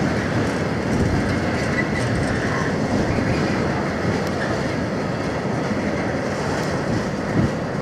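A train of loaded bogie oil tank wagons rolls slowly past, its wheels rumbling and clattering steadily over the track, with one sharper knock near the end.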